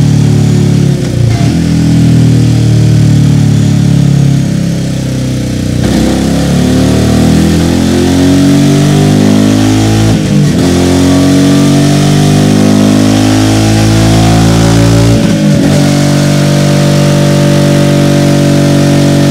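Royal Enfield Meteor 350's single-cylinder engine running hard on a chassis dyno through a Scorpion stainless-steel slip-on exhaust. Its pitch climbs steadily, then drops sharply four times, about every four to five seconds, as it shifts up through the gears.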